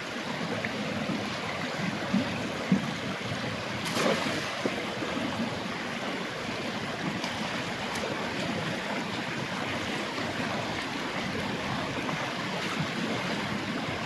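Steady rush of flowing stream water, with a few short knocks now and then.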